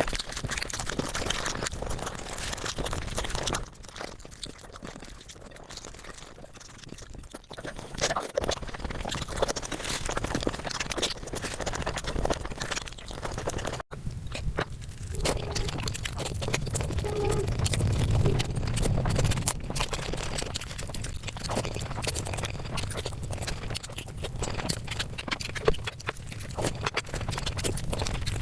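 Eating sounds sped up about five times: chewing, lip smacking and mouth noises run together into a dense, fast clicking chatter. The sound is quieter for a few seconds in the first part and breaks off briefly about halfway through before going on.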